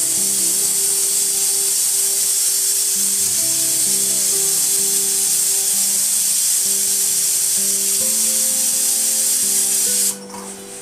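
Aluminium pressure cooker whistling: steam jets out past the weight valve in one long, loud, high hiss, the single whistle that tells the eggs inside are boiled. The hiss cuts off suddenly about ten seconds in. Background music plays underneath.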